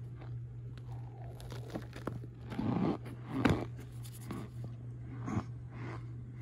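Packed cornstarch crunching and squeaking as a pressed cornstarch bar is pushed through loose cornstarch powder. The sound comes as a run of short, irregular crunches, loudest about two and a half to three and a half seconds in.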